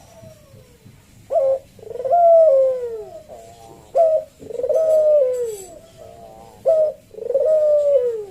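A Barbary dove (puter) cooing its deep 'kuwok' call. It makes three repeated phrases about two and a half seconds apart, each a short note followed by a long drawn-out coo that falls at the end, with softer stepped notes between the phrases.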